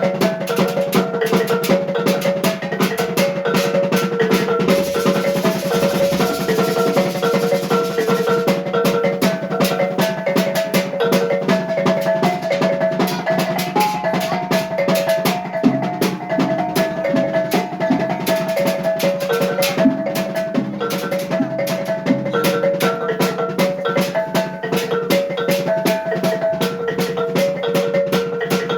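Maguindanao kulintang music: a row of small tuned gongs plays a fast, repeating melody over a quick, steady beat of drum and gong strikes and a steady low ring. Lower notes join in about halfway through.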